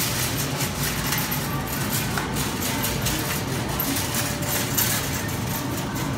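Metal shopping cart rolling and rattling over a tiled supermarket floor, with a steady hum of background noise and faint distant voices.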